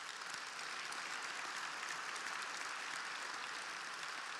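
A large audience applauding: many hands clapping together in a dense, steady wash of claps.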